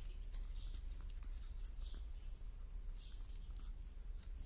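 Falcon feeding on a quail, its beak tearing and pulling at the flesh: a run of small irregular clicks and wet crackles.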